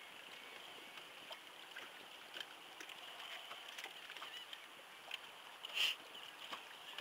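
Faint steady hiss of wind and water around a small open fishing boat, with a few light ticks and one brief louder noise about six seconds in.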